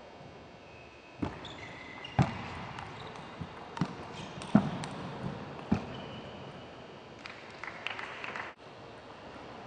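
Table tennis rally: the ball clicks sharply off bats and table, about seven knocks at uneven spacing over some four seconds. Brief high squeaks of players' shoes on the court floor come between the knocks, and more squeaks and light taps follow near the end.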